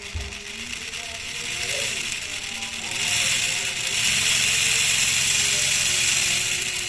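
Miniature two-cylinder engine model built from PVC pipe running, its small mechanism rattling and clicking steadily; it gets louder about three seconds in.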